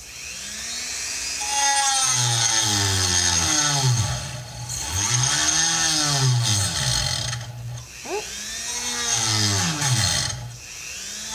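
Dremel rotary tool with a cutting wheel spinning up and cutting. Its loud whine repeatedly drops and rises in pitch over the seconds, over a high hiss.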